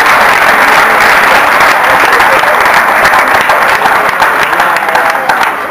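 Crowd applauding: steady, dense clapping that eases off slightly near the end.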